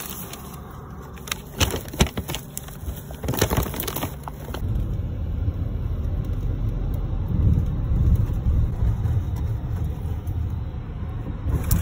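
A few knocks and rustles of handling, then from about four and a half seconds in the steady low rumble of a car driving, heard from inside the cabin.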